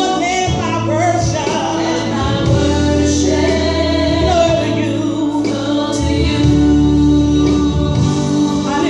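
Gospel music: singing over a steady instrumental backing, with sustained bass notes.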